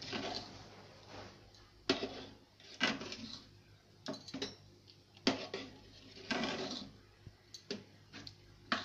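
Metal ladle stirring thick khichuri in an aluminium pot, knocking against the pot several times at uneven intervals and scraping through the rice and lentils between the knocks.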